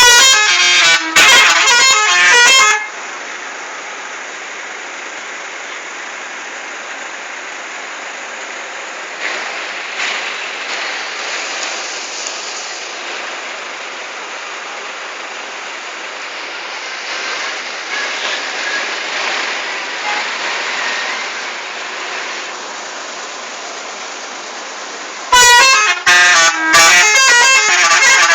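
Multi-tone telolet air horn of a Pahala Kencana bus playing its chopped-up tune of toots for about three seconds, then steady background noise for some twenty seconds, before the horn tune starts again near the end.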